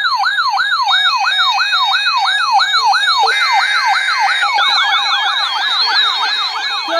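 Electronic yelp siren: a wail sweeping up and down about three times a second. About halfway through, a second, faster yelp joins over it.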